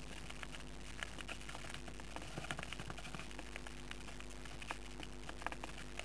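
Faint, irregular small clicks and scratchy taps from budgerigars shifting in a wooden nest box, busiest in the middle, over a steady low electrical hum.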